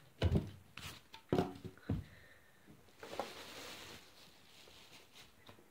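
Packaging being handled as a sandwich maker is pulled out of a tightly packed cardboard box and foam: several sharp knocks and bumps in the first two seconds, then a soft rustle of a plastic bag around three to four seconds in.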